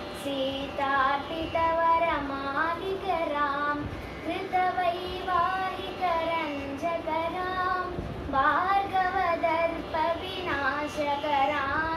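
A girl singing a Carnatic devotional song solo, unaccompanied, her voice sliding and wavering between notes in ornamented phrases, with short pauses for breath between phrases.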